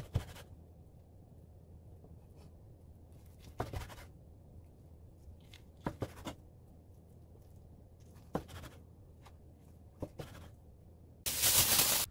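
Kitchen knife slicing through a rolled omelette and knocking on a wooden cutting board, one sharp knock every two to three seconds. Near the end a loud rush of noise lasts about a second.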